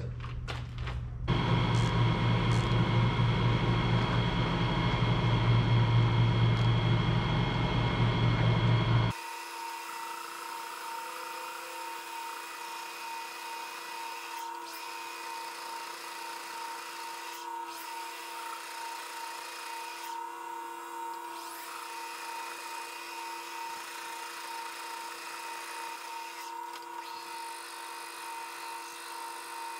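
Large metal lathe running with its chuck spinning, a steady machine whine. About nine seconds in the sound suddenly drops to a quieter, thinner whine that carries on steadily.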